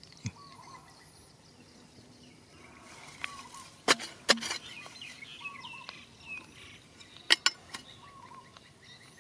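A long-handled digging tool chopping and scraping into dry, stony soil: a short scrape with two sharp knocks a little before the middle, and two more quick knocks later. Small birds chirp throughout.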